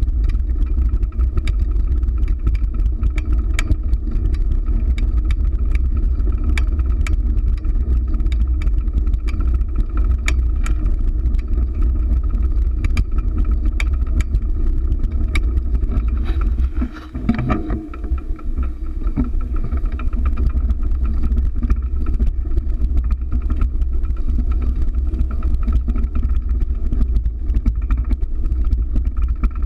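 Steady low rumble and rattle from a camera mounted on a fixed-gear bicycle as it rolls over stone-mosaic pavement, with many sharp clicks and knocks from the bumps. The rumble drops off briefly about seventeen seconds in, then picks up again.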